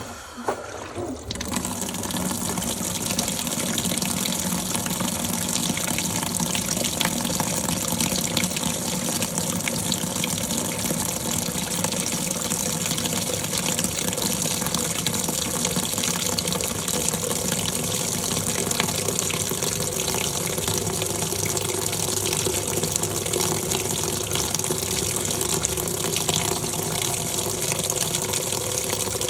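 Top-loading washing machine filling with water: a click, then water gushing steadily into the tub.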